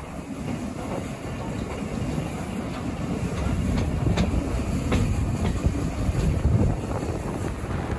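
Steam train hauled by the Schools class 4-4-0 locomotive Repton running along the line, a steady rumble of wheels and carriages that builds toward the middle, with a few sharp clicks of wheels over rail joints.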